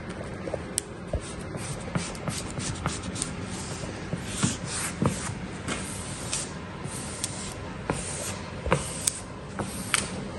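Plastic squeegee rubbing and swiping over vinyl wrap film on a boat hull, with irregular swishes, crackles and ticks as the film is lifted and pressed down, over a steady low hum.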